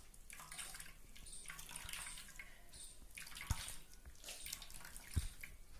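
Faint trickling and dripping of thandai liquid squeezed through a plastic mesh strainer into a steel pot, as the paste is pressed from underneath, with two soft knocks about three and a half and five seconds in.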